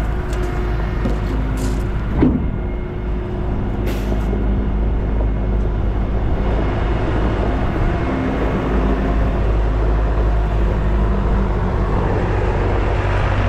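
Peterbilt 579 semi tractor's diesel engine idling steadily, with a brief sharp sound about two seconds in.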